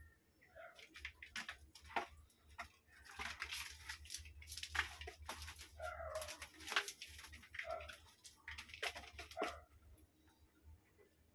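Two kittens playing among cardboard boxes and ribbon: a string of short scratching and rustling noises, busiest in the middle, with a few brief, soft mews in between.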